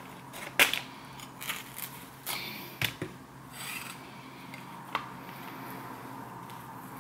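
Kitchen food-prep sounds: irregular sharp knocks and clicks of utensils, a handful in the first three seconds and one more about five seconds in, over a faint steady hum.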